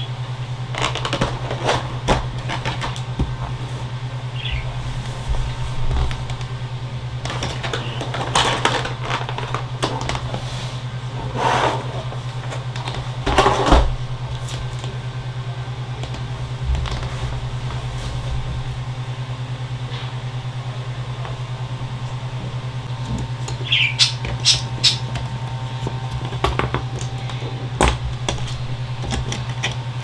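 A steady low hum, with scattered clicks, light knocks and short rustles of parts being handled.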